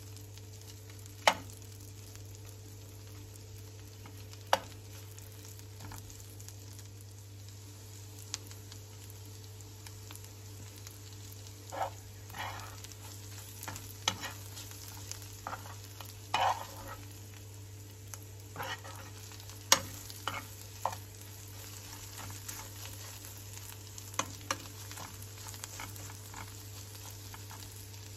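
Tomato pieces sizzling steadily in a nonstick frying pan while a metal spoon stirs them, scraping across the pan and tapping sharply against it now and then.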